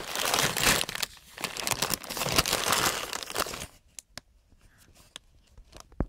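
Clear plastic bags of small electronic parts crinkling and rustling as they are handled, for about three and a half seconds, then a few faint clicks.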